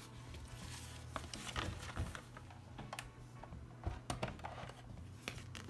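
Scattered light clicks, taps and soft knocks of craft supplies being handled on a cutting mat, with a few sharper knocks as a plastic die-cutting machine is set in place.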